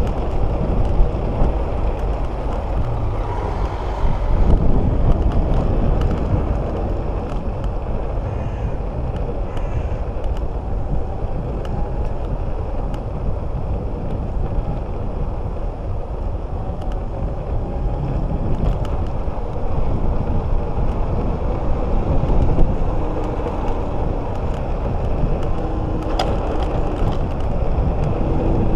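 Wind buffeting the microphone and tyres rolling on asphalt as a Speedway Mini 4 electric scooter is ridden at speed: a steady low rumble with scattered clicks and rattles over bumps.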